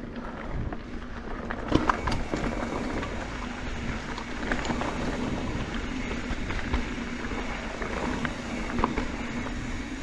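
Carbon Santa Cruz Hightower mountain bike rolling along a dirt trail: tyre noise on dirt and rattle of the bike, with a faint steady hum and a few sharp knocks over bumps about two seconds in and again near the end.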